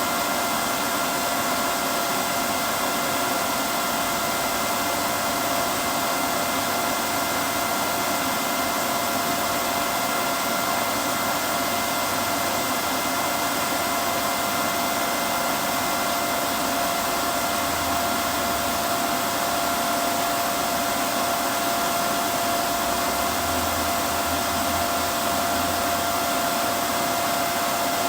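TIG welding arc from a Miller Maxstar inverter running steadily on a root pass in beveled 6-inch Schedule 80 steel pipe: a constant even hiss with a steady high whine, without a break. The 1/8-inch ER70S filler rod is laid in the gap and melted in.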